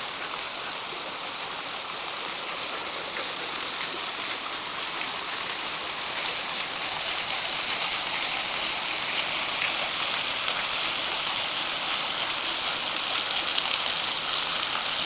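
Waterfall running steadily, an even hiss of falling and splashing water that grows somewhat louder about halfway through. The flow is low, in one of the driest times of the year.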